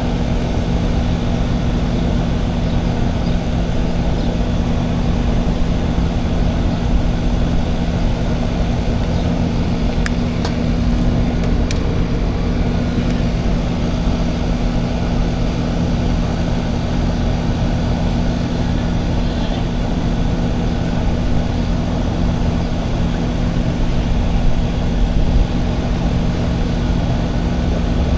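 Air conditioner's outdoor condensing unit running steadily, a compressor hum under the rush of its fan. A couple of faint clicks come about ten and twelve seconds in.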